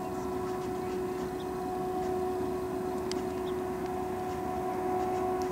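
Approaching freight train led by diesel locomotives: a steady rumble slowly growing louder, with a constant high whine over it.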